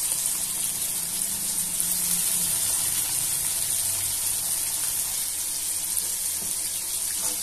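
Flour-coated boneless chicken pieces deep-frying in a pan of hot oil: a steady sizzle.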